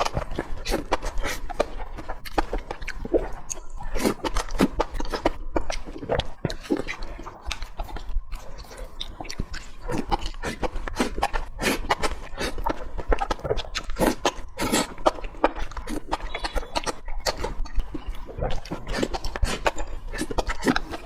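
Close-miked eating of braised pork trotters: continuous wet chewing, sucking and lip-smacking on sticky, gelatinous meat and skin, in quick irregular clicks and smacks.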